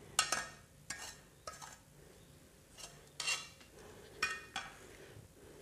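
Wooden spatula scraping and knocking against a wok, scraping sautéed chili paste out of it: about half a dozen short scrapes, each with a faint ring, the loudest about three seconds in.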